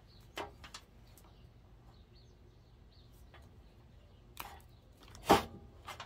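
A few short clicks and knocks from hand tools and wire being handled while wiring an inline fuse holder, with one much louder sharp clack about five seconds in.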